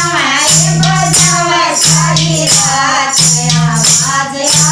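Haryanvi folk bhajan: a singing voice over rhythmic jingling percussion, with a low steady held note that drops out and comes back every second or so.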